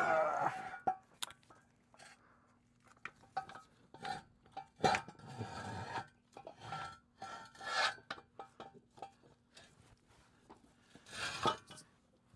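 A large metal RV jack stand being shoved and repositioned under a car's engine: irregular metal scraping, rubbing and clanking, with a few louder scrapes spread through. It does not fit, sitting about two inches too tall.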